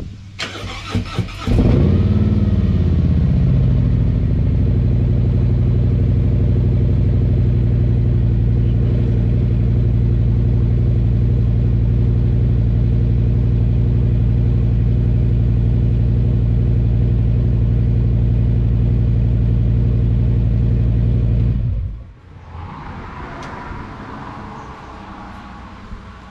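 Car engine cranking and catching on a catless exhaust with unbaffled straight-through race tips, rising briefly and settling, then idling steadily; it shuts off suddenly about 22 seconds in.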